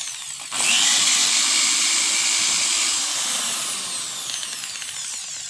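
JLD 5-inch electric car polisher running with its foam pad on: its motor dips for a moment, then spins back up with a rising whine about half a second in, and runs on, slowly getting quieter toward the end.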